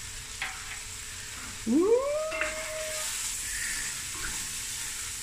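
Onions and masala spice frying in oil in a stainless steel pot, a soft steady sizzle, with a wooden spoon stirring through it in the second half. A little under two seconds in, a voice gives one wordless exclamation that rises in pitch and holds for about a second, the loudest sound.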